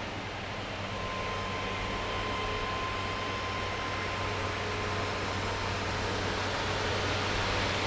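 Steady whooshing of running cooling fans with a low electrical hum and faint steady whine, growing slightly louder near the end.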